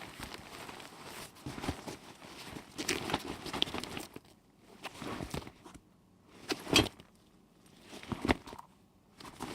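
A backpack rattling and rustling as it is jogged with, its contents jangling. Busy shaking at first, then separate jolts with short quiet gaps, the loudest about two-thirds of the way in.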